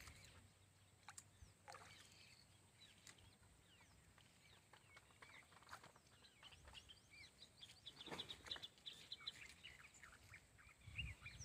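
Near silence with faint small-bird chirps and twitters, busier in the second half, and one soft bump about eight seconds in.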